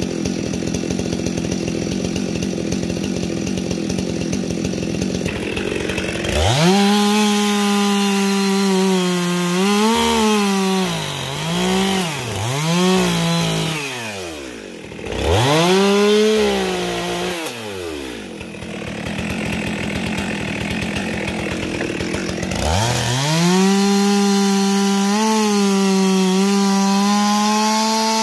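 Two-stroke chainsaw idling, then revved to full throttle and bucking logs into firewood lengths. The pitch sags and wavers as the chain loads in the cut, and the saw drops back toward idle between cuts. It revs up into a second long cut near the end and falls off right at the close.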